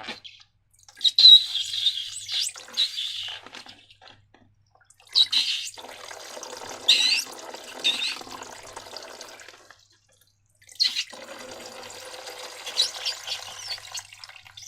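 Wet, sticky slime being squished and worked by hand, making crackly squelching sounds. It comes in three stretches, each starting with sharper crackles, with brief silences between.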